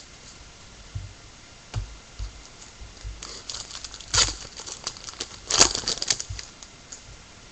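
Baseball card pack handled and opened: a few soft knocks, then foil wrapper crinkling and tearing with cards rubbing together, loudest about four and five and a half seconds in.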